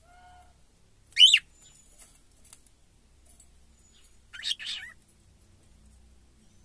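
Cockatiel calling: a short, loud, high call that sweeps up and down about a second in, then a longer, broken call of several parts near the middle.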